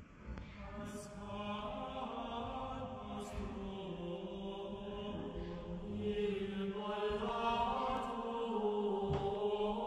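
Background music of slow, chant-like choral singing with long held notes, fading in at the start.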